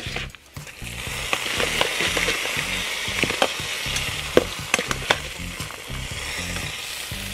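Hot oil sizzling in a cast-iron kazan as fried chicken pieces are laid onto fried potatoes, the hiss rising about a second in. Sharp clicks and knocks of a metal skimmer against the pot and the pieces run through it.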